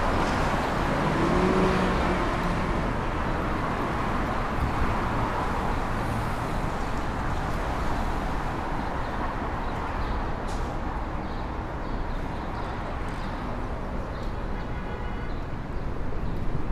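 City street traffic ambience: a steady wash of passing cars and engines, with an engine tone rising briefly a second or two in.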